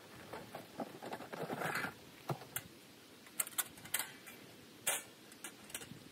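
Irregular light clicks and knocks, about a dozen of them at uneven intervals, with a short rustle about a second and a half in and the sharpest knock about five seconds in.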